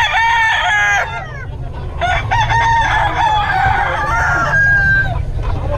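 Gamefowl roosters crowing: one crow right at the start and a longer one from about two seconds in, over a steady low rumble.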